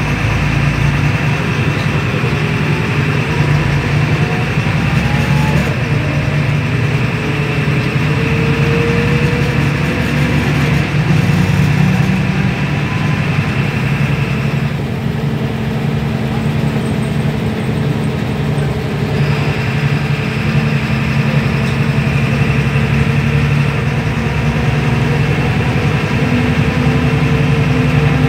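MAN NL222 city bus heard from inside the passenger cabin while driving: its six-cylinder diesel engine and road noise run steadily. The engine note rises for a few seconds around the middle as it pulls, and a high hiss drops away for a few seconds just after.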